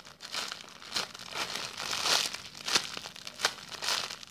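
Clear plastic packaging bag crinkling as hands grip and turn a squishy toy inside it, in irregular rustling bursts.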